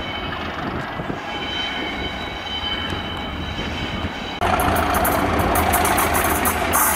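Class 37 diesel locomotive (English Electric V12) hauling coaches on curved station track. At first it is a distant rumble with thin, high, steady squealing tones from the wheels on the curves. About four seconds in it jumps to a louder, closer engine sound with a run of sharp clicks and rattles.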